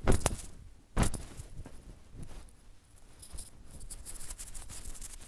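Fabric of a hoodie rustling and scraping close against the phone's microphone as the phone is handled, with a sharp knock at the start and another about a second in, then a soft crackling rustle that grows denser in the second half.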